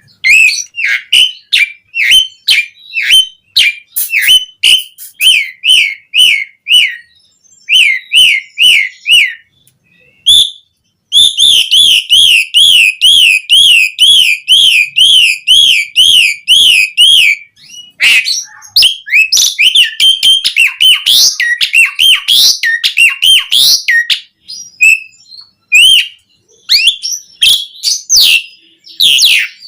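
Asian pied starling singing: quick repeated whistled notes in short runs, then a fast, even trill of rising-and-falling notes for several seconds in the middle, then varied chattering phrases.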